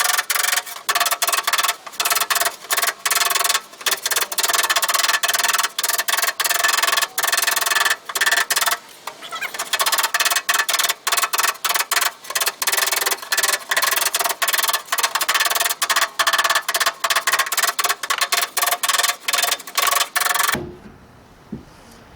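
Small ball-peen hammer tapping quickly and repeatedly on the sheet-steel front fender of a 1968 AMX from the inside, each blow ringing the panel, as low spots are worked out. The tapping pauses briefly about nine seconds in and stops shortly before the end.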